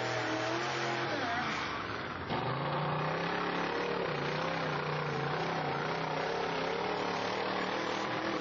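Engines of off-road mud-racing vehicles revving hard. Their pitch rises and falls over a steady wash of noise, with an abrupt jump a little over two seconds in.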